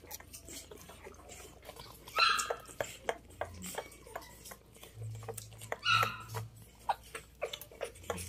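Newborn puppies suckling at their mother's teats: constant small wet clicks and smacks, with two short high squeaks from a puppy, about two seconds in and again about six seconds in.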